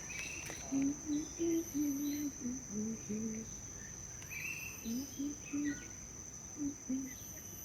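Bird park ambience: a steady high insect drone throughout, with a run of short low notes at shifting pitches and scattered higher bird chirps.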